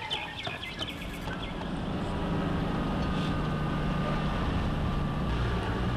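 Engine of a moving vehicle heard from inside the cabin: a steady low drone that comes up about two seconds in and then holds.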